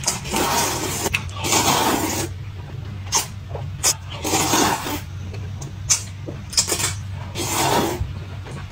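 A person slurping noodles in a run of drawn-out sucks, about six longer slurps with a few short sharp ones between.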